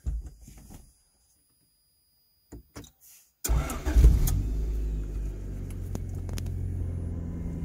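Honda D16Y8 four-cylinder engine starting about three and a half seconds in after a few faint clicks, catching at once and settling into a steady idle, heard from inside the car's cabin.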